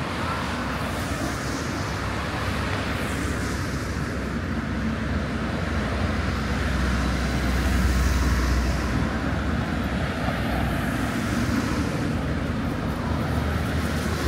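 City street traffic: cars passing, with a low engine and tyre rumble that swells about halfway through.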